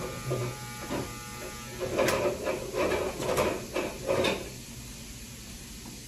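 Electric hair clippers humming at the start, then falling away. About two seconds in comes a run of about six short bumps and rustles.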